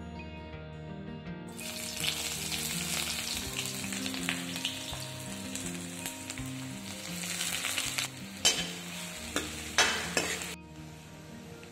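Chopped onions frying in hot oil in an aluminium kadhai, a loud sizzle starting about a second and a half in, with a metal ladle striking and scraping the pan twice near the end. The sizzle cuts off shortly before the end, leaving guitar music underneath.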